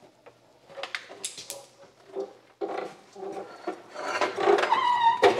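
Metal clunks, rattles and scraping from working a horizontal metal-cutting band saw: the bow is raised and the vise handled to free a freshly cut chunk of steel bar. The clatter is busiest and loudest near the end.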